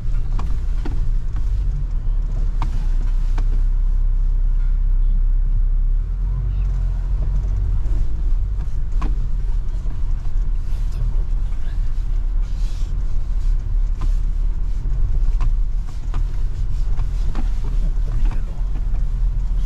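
Mahindra Scorpio N driving over a rough unpaved mountain road: a steady low engine and road rumble with scattered knocks and rattles from the bumps.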